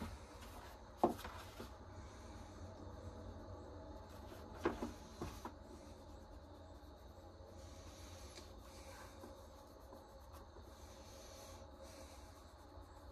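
Faint rubbing and handling of a leather sheath, with light knocks about a second in and again near five seconds.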